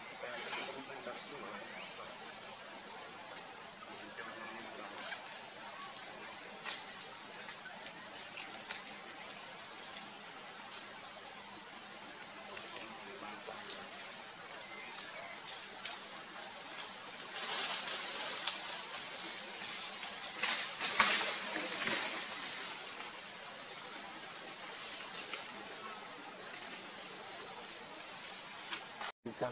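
Steady, high-pitched insect chorus of crickets or cicadas, holding two constant tones. It is broken by occasional sharp clicks and, about two-thirds of the way through, a few seconds of rustling and crackling.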